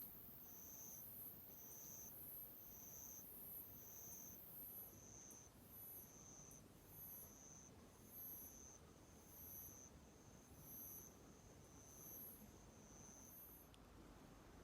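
Night insects singing faintly. One repeats a short high chirp about once a second, while another gives a very high trill that breaks into spaced pulses about halfway through.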